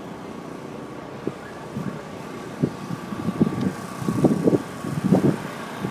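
Gusts of wind buffeting the microphone, in irregular loud bursts from about two and a half seconds in, over a steady low hum.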